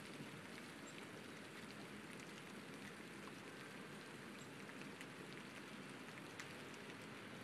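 Faint, steady light rain falling, with scattered single drops ticking close by.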